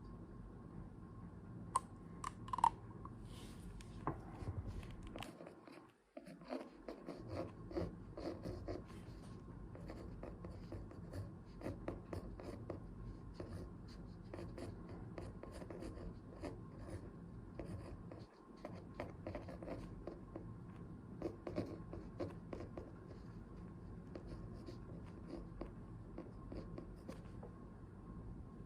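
Writing on paper by hand: a continuous run of small scratching strokes and light taps over a faint steady hum, briefly pausing twice.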